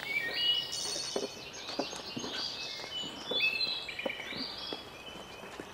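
Songbirds chirping and singing, many short calls overlapping, with light footsteps on stone steps as scattered soft knocks beneath.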